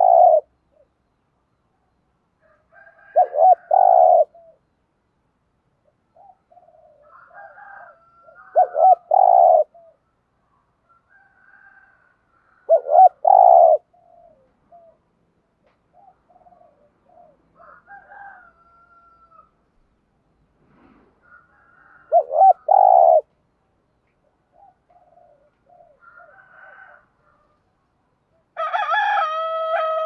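Spotted dove cooing: short low coo phrases, the 'thúc gù' call kept as a lure, repeated about five times a few seconds apart, with fainter bird calls in between. A rooster crows near the end.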